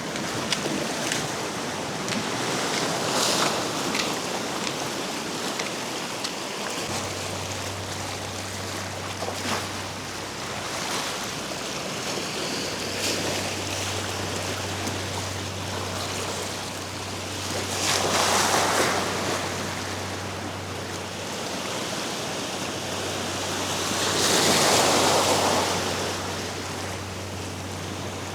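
Surf washing against a rock jetty with wind on the microphone, two louder waves surging about two-thirds of the way in and again near the end. A low steady hum comes in about a quarter of the way through.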